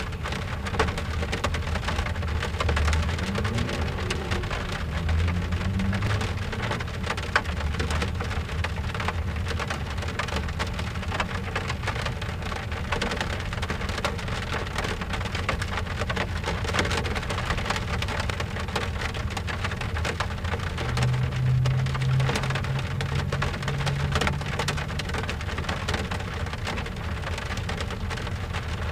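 Steady rain pattering on a car's window glass: a dense patter of countless small drop ticks. A low rumble swells underneath twice, early and again about two-thirds of the way through.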